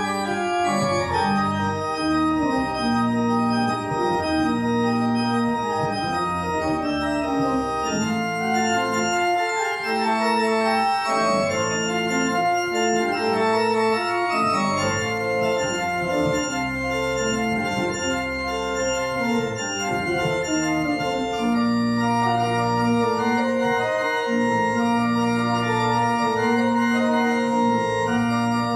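Church organ playing full chords that change every second or so, over long-held low bass notes.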